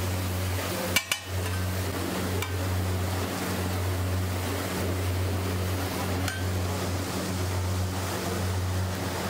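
Cooking on a large flat iron tawa griddle: a steady rushing hiss with a low hum beneath it, broken by sharp metal clacks on the griddle, the loudest about a second in and a few fainter ones later.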